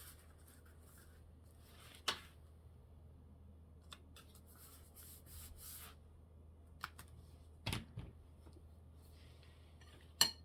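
Faint paper-crafting handling sounds: paper sliding and rustling, with a sharp click about two seconds in and a couple of soft knocks near eight seconds.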